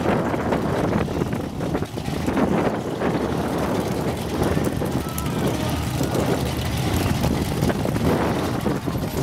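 Many hot rod and muscle car V8 engines running together at once in a cackle, a continuous dense engine sound with no breaks, with wind on the microphone.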